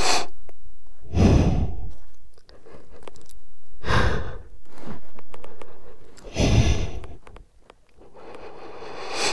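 Heavy breathing and sighs close to a helmet microphone: slow, noisy breaths every couple of seconds with short pauses between them.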